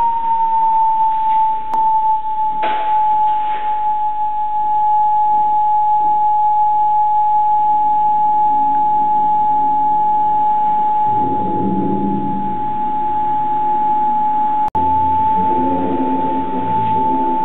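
Homemade electronic theremin holding one steady high tone, settling slightly lower right at the start and cutting out for an instant about fifteen seconds in.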